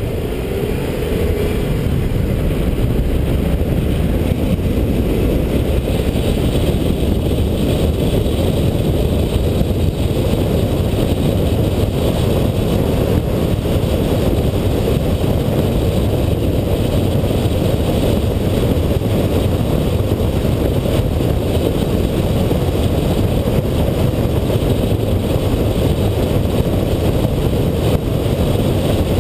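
A vehicle driving on a road: a steady low rumble of road and wind noise that grows louder over the first couple of seconds and then holds even.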